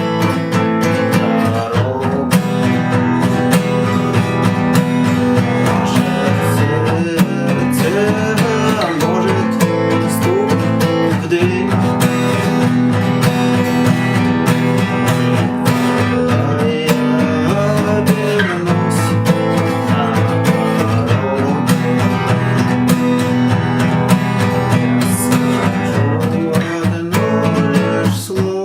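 Acoustic guitar strummed in a steady rhythm, using the 'stuk' stroke, where the strings are struck and muted for a percussive knock within the strum pattern.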